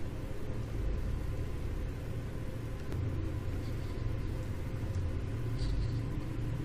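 Steady low background rumble with a faint hum, no distinct events.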